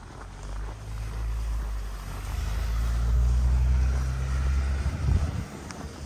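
A motor vehicle driving past, its engine hum and tyre noise building to a peak about three to four seconds in, then fading quickly.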